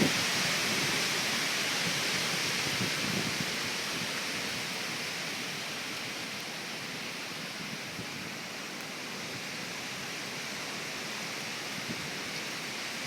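Steady hiss of Hurricane Irene's heavy rain and wind, easing slightly over the first several seconds.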